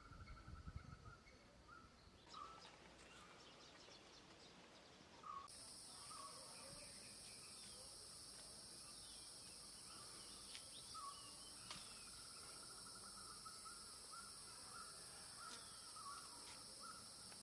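Faint outdoor ambience of birds calling, short trilled notes repeated every second or two; about five seconds in, a steady high-pitched insect drone comes in and holds.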